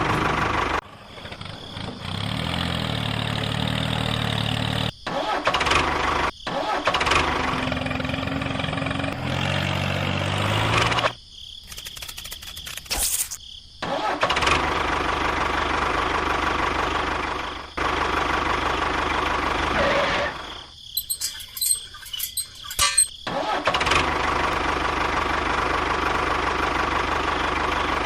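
Engine running, heard in a series of abruptly cut stretches, some with a steady low hum. Two quieter breaks hold a few sharp clicks.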